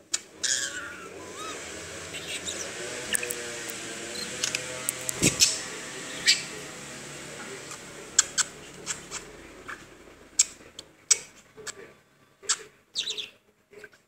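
Pet budgerigar chattering: a fast run of scratchy warbling mixed with clicks for the first half, then a string of sharp clicks and short chirps.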